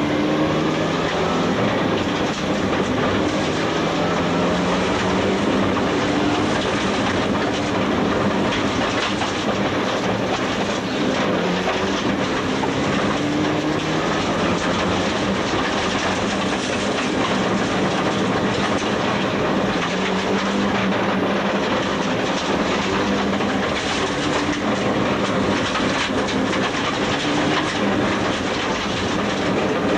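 Rally car's engine revving hard, heard from inside the cabin, its note rising and falling again and again through gear changes and braking, over a constant rush of tyre and gravel noise from the unsealed road.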